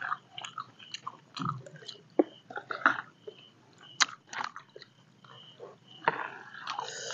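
Two people eating with spoons from plastic plates: light clicks and scrapes of the spoons and chewing sounds. A louder rustling patch comes near the end.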